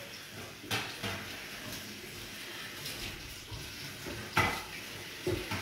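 Tap water running into a stainless steel sink while broccoli greens are rinsed and handled by hand, with a few short knocks against the sink.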